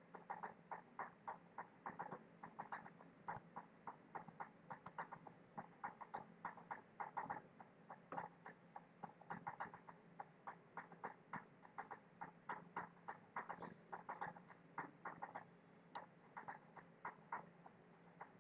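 Faint, irregular computer mouse clicks, often several in quick succession, over a low steady hum.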